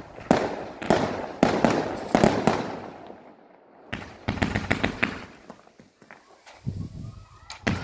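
Aerial fireworks bursting: a rapid string of sharp bangs, a brief lull, then a fresh volley of bangs with crackling, and a single bang near the end.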